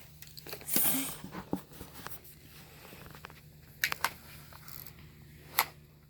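Handling of a plastic instant camera: a brief rustle about a second in, then a few sharp separate clicks, the loudest near the end.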